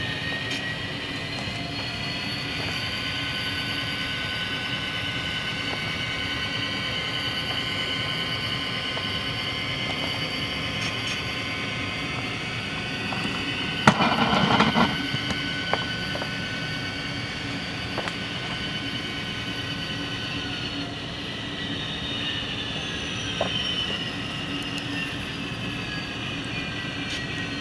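Tsunami sound decoder in an HO-scale Proto 2000 SD60M model locomotive playing a steady diesel-locomotive engine sound through the model's small speaker as it runs along the track. A brief louder burst comes about halfway through.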